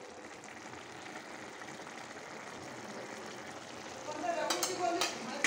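Potato and spinach curry simmering in a kadai on a gas burner: a steady cooking hiss. A voice comes in about four seconds in.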